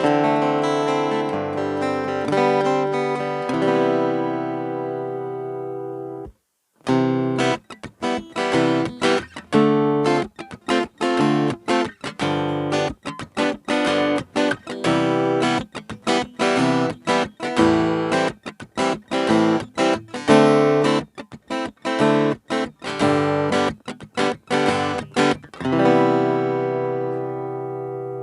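Cort AD810 OP acoustic guitar being played. A chord rings and slowly fades, then stops abruptly about six seconds in. After a short gap comes a long run of quick picked notes and strokes, ending on a chord left to ring.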